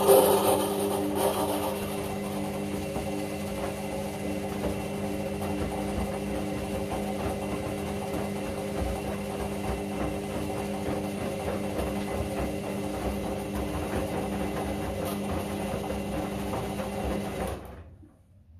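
Candy CS1292D3 front-loading washing machine in its pre-wash, the drum motor running with a steady hum as wet laundry tumbles in the drum, then stopping suddenly near the end.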